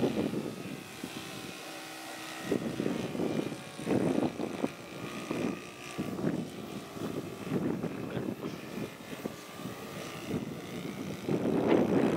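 Single-engine propeller biplane flying aerobatic manoeuvres overhead, heard from the ground. Its engine sound swells and fades in uneven surges as it turns.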